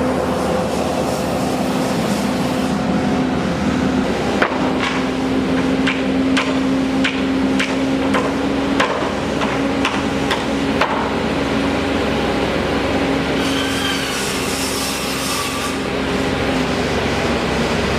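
Hammer blows, about a dozen sharp strikes at an uneven pace of roughly one to two a second, over the steady hum of running machinery. A brief, higher noisy sound follows near the end.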